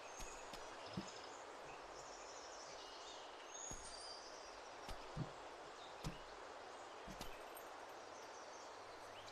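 Faint outdoor ambience: a steady hiss with scattered distant bird chirps, and a few soft knocks.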